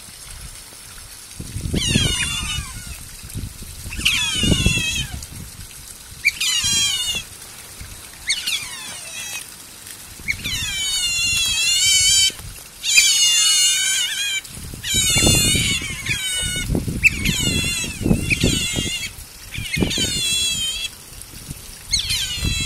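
Asian small-clawed otters calling: high-pitched, wavering squeaks in repeated bouts every second or two, busiest and loudest in the middle. Low rumbling runs underneath.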